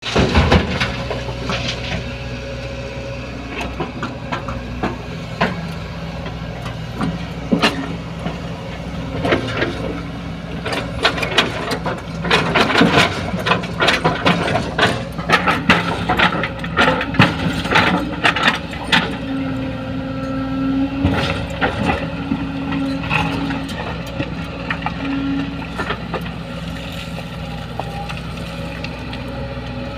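Diesel engines of an excavator and a dump truck running steadily while an excavator bucket loads stone into the truck's steel tipper body. A dense run of rattling and knocking impacts comes from about ten to nineteen seconds in.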